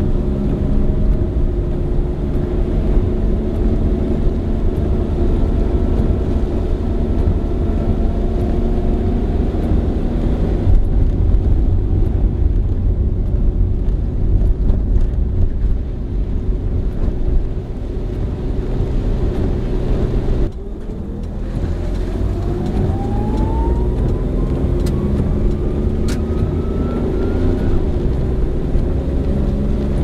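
Heard from inside a car driving on wet roads: a steady rumble of the engine and tyres. About two-thirds of the way through the sound drops as the car slows, then a whine rises steadily in pitch as it pulls away and speeds up.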